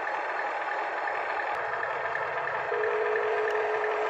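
Small electric motors and gearboxes of radio-controlled toy trucks whirring steadily. About two-thirds of the way through, a steady buzzing electronic tone joins in.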